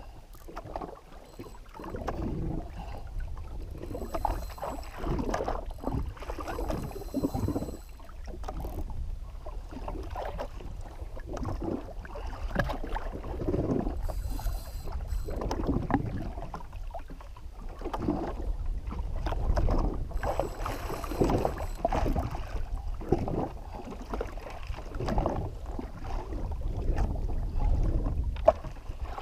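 Sea water slapping and sloshing against the hull of a drifting jet ski, with wind buffeting the microphone as a low rumble that swells and eases unevenly.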